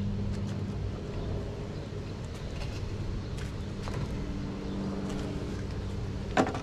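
Steady low motor hum, engine-like, with a few light clicks and one sharper knock near the end as the outboard's gearcase (lower unit) is handled and set down.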